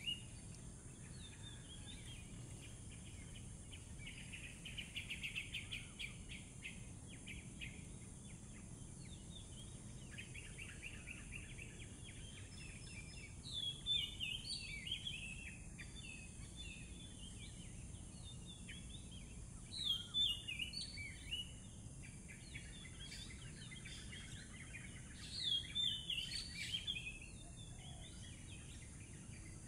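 An oriental magpie-robin singing in bursts of varied, quick whistled phrases and fast repeated notes, with pauses between them, over a steady background hiss.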